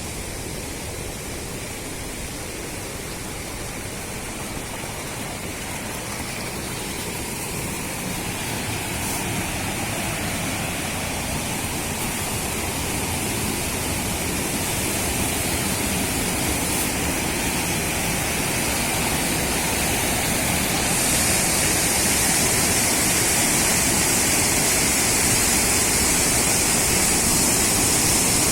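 Rushing water of a mountain waterfall, a steady noise that grows gradually louder, with a brighter, hissier edge coming in about three quarters of the way through.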